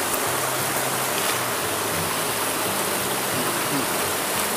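Shallow river water rushing steadily over stones and a low rock weir.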